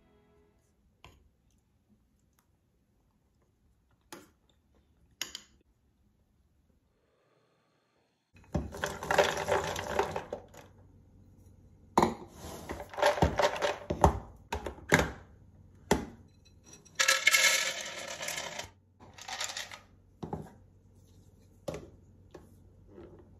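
Cashews rattling and clattering against a glass storage container in several bursts, as they are poured or shaken. A few light clicks, like a spoon tapping a bowl, come in the first seconds.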